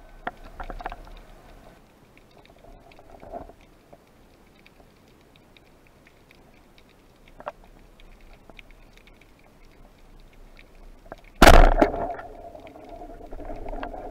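Underwater sound on a spearfisher's camera: scattered faint clicks and knocks, with one loud sudden burst late on that quickly dies away.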